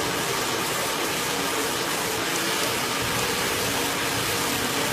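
Hand-held hair dryer running steadily, a constant rush of air as hair is blow-dried over a round brush.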